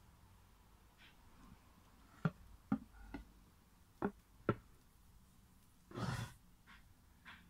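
Hands handling a heavy yellow Qinan agarwood cutting board: five light, sharp knocks of fingers and hand against the wood between about two and four and a half seconds in, then a short hiss of noise about six seconds in.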